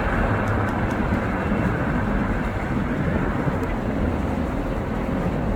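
Helicopter turbine and rotor noise, a steady rumble with no clear change.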